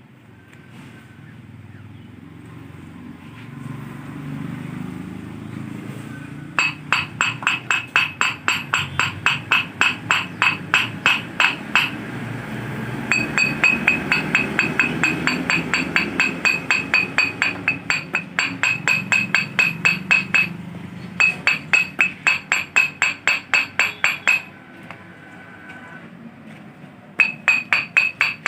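Hammer striking metal in rapid runs of about three or four blows a second, each blow ringing at one clear pitch. The runs go on for several seconds at a time with short pauses between them.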